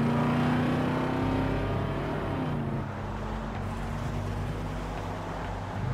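Old Ford pickup truck's engine running at highway speed, louder for the first two or three seconds, then settling into a steady drone of engine and road noise.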